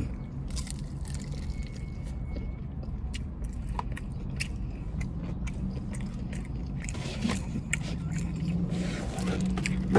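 Close-up eating sounds of someone chewing fried chicken wings with the mouth open: smacking, with small crackly clicks, over a steady low hum.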